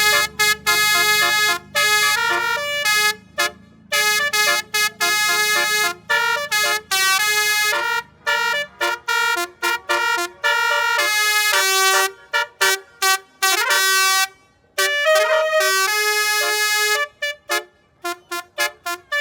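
A bus's 'basuri' telolet multi-tone musical horn playing a tune, mixing held notes with quick runs of short toots and ending in a string of rapid staccato blasts. A low steady engine hum runs underneath for about the first nine seconds, then stops.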